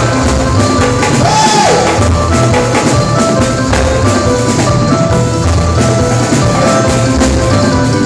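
Live band music: a drum kit keeping a steady beat under held keyboard notes, played loud. About a second and a half in there is one falling glide in pitch.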